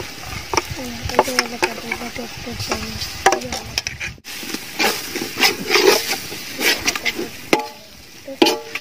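A metal ladle clinks and scrapes against an aluminium pot, stirring onions and ginger-garlic-green chilli paste frying in ghee, with a light sizzle.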